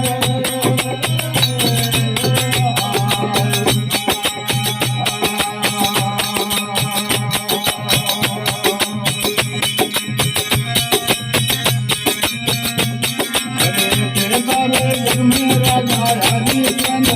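Rajasthani devotional aarti music: a fast, steady jingling percussion beat under a sustained melody.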